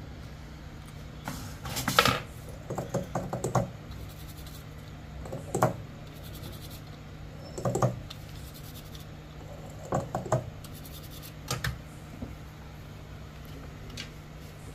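Small clicks and scrapes of smartphone parts and a small hand tool being handled during reassembly, over a low steady hum. A quick run of ticks comes near the start, then single clicks every couple of seconds.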